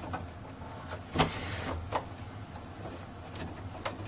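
Brother electric sewing machine running as it stitches a waistband seam, a steady motor hum broken by a few sharp clicks.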